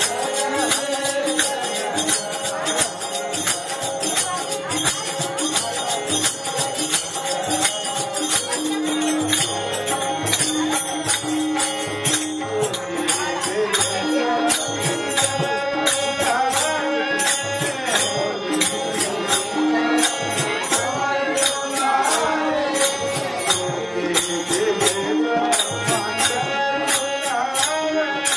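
Devotional bhajan music: a harmonium holds steady chords under a fast, even clicking of small hand percussion and a drum, with men's voices singing a devotional song, clearest in the second half.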